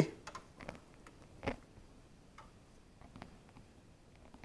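Faint scattered clicks and taps of glass test tubes knocking against a plastic test-tube rack as one is lifted out and handled, the clearest about one and a half seconds in.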